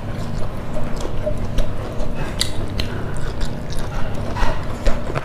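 Close-miked chewing and wet mouth sounds of a person eating a rice and fried-food meal by hand, with scattered small clicks and crackles over a steady low hum.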